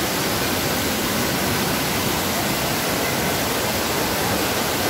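Steady rush of fast-flowing water in a rocky canyon, an even, unbroken noise.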